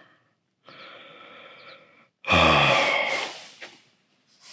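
A man draws a long breath, then lets out a loud sigh that falls in pitch, about two seconds in.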